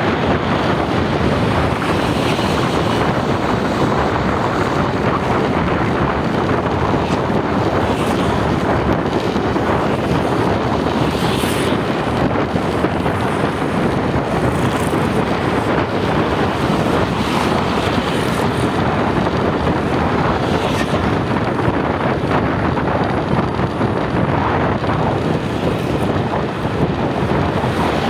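Steady vehicle and wind noise, with wind rushing over the microphone at an even, loud level.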